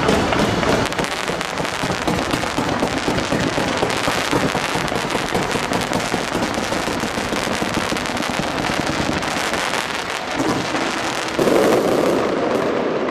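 Fireworks barrage: a dense, continuous run of launches and crackling pops from ground-fired fan-pattern fireworks, with a louder surge of bursts about eleven seconds in.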